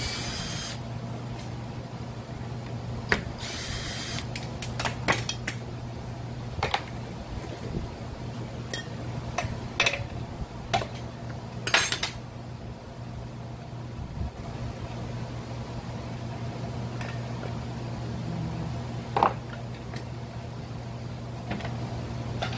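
Cordless drill-driver running in a few short bursts to back out the screws on a brush cutter's Zenoah engine housing, with sharp metallic clicks and clinks of parts and tools being handled in between, over a steady low hum.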